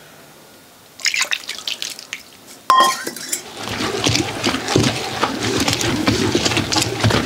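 Water poured from a steel vessel splashing onto wet grated coconut in a stone grinder, with a sharp metallic clink just under three seconds in. Then the stone pestle turns in the stone mortar, a continuous wet grinding and sloshing as the coconut is ground to a paste.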